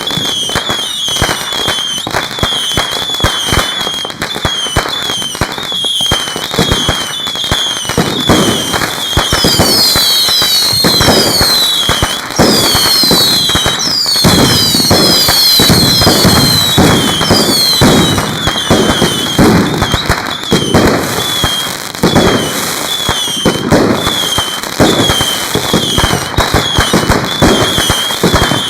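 Fireworks going off in a dense, unbroken run of rapid bangs and crackling, with many short whistles sweeping in pitch over the top. They are heaviest from about eight to twenty seconds in.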